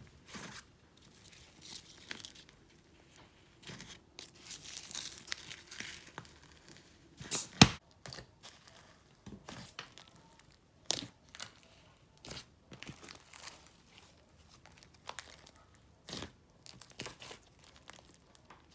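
Thick, stretchy clay slime being squished, stretched and poked by hand, giving irregular sticky clicks and crackling pops, with one loud pop about seven and a half seconds in.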